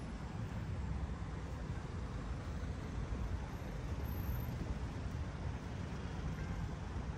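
Street traffic ambience: a steady, low rumble of cars on a city road.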